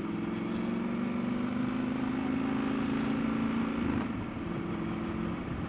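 Triumph Scrambler 1200's parallel-twin engine under way, its note rising gently for about four seconds, then dropping a little and running on steadily.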